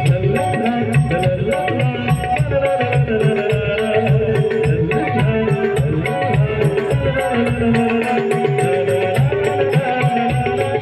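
Instrumental interlude of a Marathi wedding song: a tabla beat under a sustained, held melody, with no singing.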